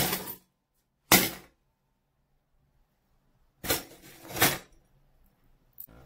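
A fist in a 3D-printed plastic knuckle smashing a white coin bank: a loud crack as it breaks, a second sharp hit about a second later, then a longer double clatter of broken shards and coins around four seconds in.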